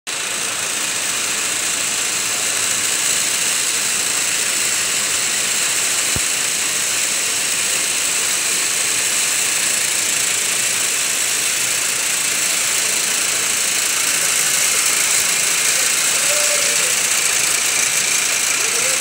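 Yarn doubling and twisting machine running: a steady whirring hiss from its row of spinning spindles.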